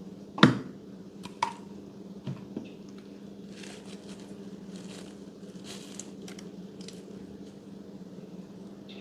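Slime being squished by hand, with one sharp pop about half a second in and a few smaller clicks, then softer squishing.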